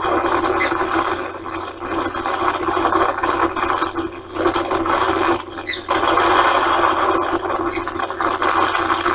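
Wind rushing over the nest camera's microphone, easing briefly twice near the middle, with a few faint short high chirps from the ospreys.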